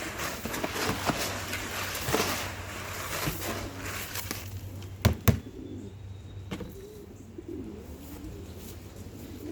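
Mixed pigeon feed (grain, whole corn and pellets) rattling and crackling as it is stirred in a big tub, with two sharp knocks about five seconds in. After the knocks, pigeons cooing.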